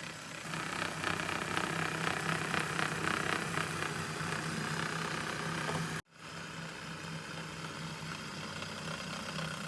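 Small LEGO M motor whirring steadily as it drives a tiny LEGO bulldozer. The sound cuts out abruptly about six seconds in and resumes at once.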